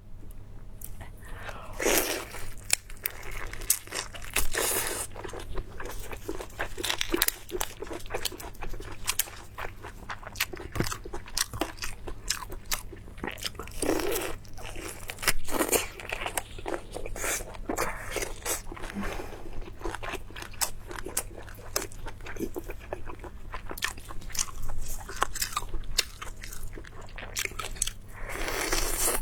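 Close-miked eating: crunchy bites and wet chewing, a steady run of short crackles with several louder bites.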